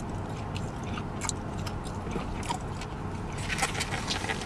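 A man chewing a mouthful of barbecue pork with open-mouthed smacking, with a few sharp clicks and scrapes of fork and plate, several of them close together near the end, over a steady low hum.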